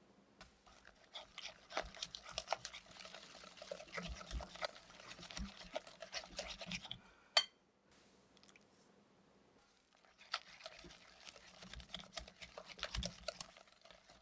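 Wire whisk beating softened butter and egg in a glass bowl: fast wet scraping, with the wires clicking against the glass. About seven seconds in the whisk strikes the bowl once with a sharp clink, there is a short pause, and the beating starts again.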